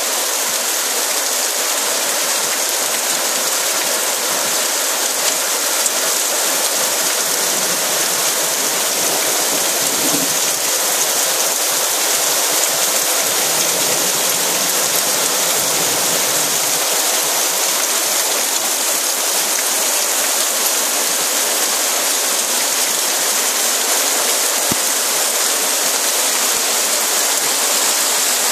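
Heavy rain pouring steadily onto flooded paving, a dense, even hiss of drops splashing into standing water.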